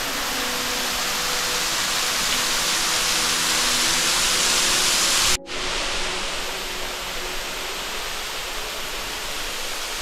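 Steady rushing of Northrup Falls, thin streams of water plunging about 60 feet over a rock ledge into the pool below. The sound cuts out for a split second a little past halfway, then carries on slightly quieter.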